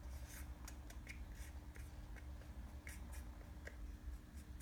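Faint light scratchy ticks, about three a second, from a small brush working two-part epoxy onto the thread wrap of a fishing rod guide, over a faint steady hum.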